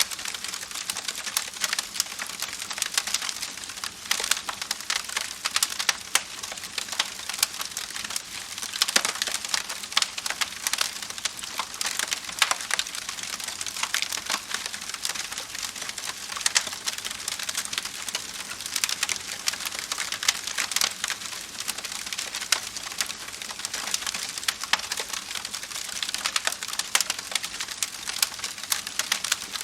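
Wood fire burning: dense, continuous crackling with frequent sharper snaps of burning wood.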